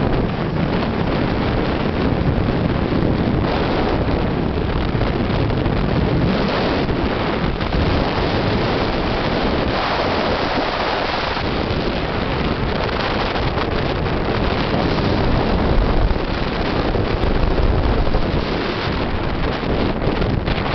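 Steady wind buffeting the microphone on a boat moving fast on a river, over the rush of water and the boat's motor.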